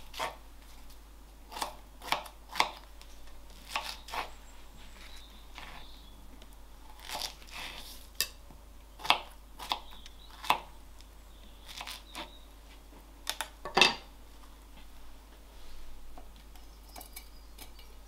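Kitchen knife slicing strawberries on a wooden chopping board: irregular sharp taps of the blade striking the board, with soft crunches as it cuts through the fruit. One harder knock comes shortly before the end.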